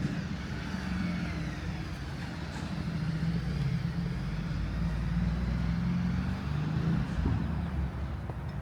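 A car's engine running close by in street traffic, a steady low drone with a faint whine that slides in pitch.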